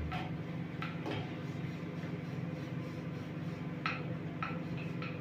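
Scattered light clinks and taps of steel plates and utensils being handled on a kitchen counter, about six in all, over a steady low hum.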